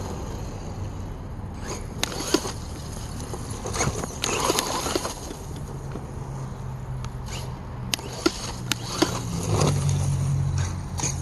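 Redcat Volcano RC monster truck being driven hard: scattered sharp knocks and scrapes from the truck hitting and landing, with a low steady drone in the second half.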